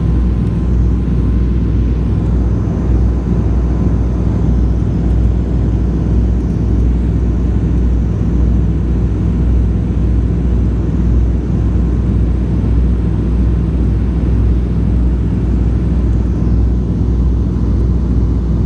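Lisunov Li-2's twin nine-cylinder radial piston engines droning steadily in flight, heard from inside the cabin as a loud, even low rumble.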